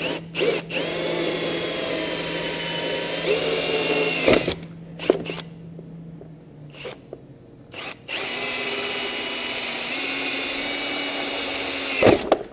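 Cordless drill driving a hole saw through a plastic rock guard panel to cut a rounded corner. It runs steadily for a few seconds, pauses, then runs again for about four seconds and ends with a short knock.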